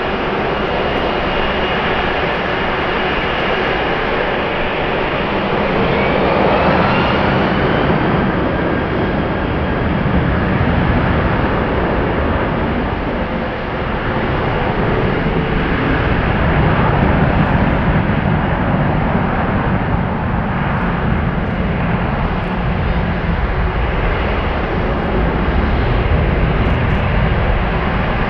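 Airbus A330-300's twin Pratt & Whitney PW4000 turbofans at takeoff thrust, a loud, steady jet rush, with a faint whine rising in pitch about six seconds in.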